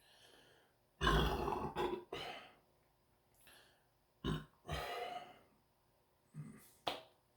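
A man belching from the gas of two liters of soda drunk in one go: a long, loud burp about a second in, a shorter one right after, then several short burps.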